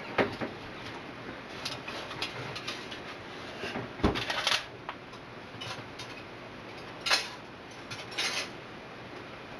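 Handling of a foil-lined baking pan and a metal utensil: scattered clinks and knocks with short crinkles of aluminium foil. The sharpest knocks come near the start, about four seconds in and about seven seconds in.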